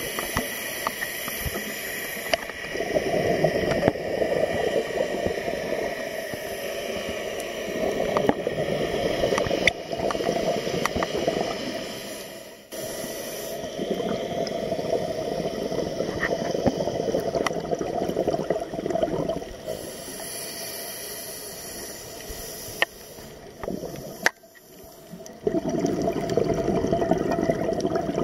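A scuba diver breathing through a regulator underwater: long spells of bubbling exhaust noise alternate with shorter, higher hisses, with scattered sharp clicks throughout.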